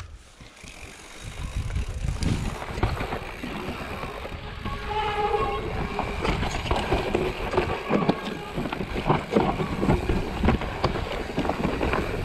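Scott Ransom full-suspension mountain bike descending a rough dirt and stone trail: tyres rumbling and crunching over the ground with constant rattles and knocks from the bike. Quiet for about the first second, then it builds and stays rough.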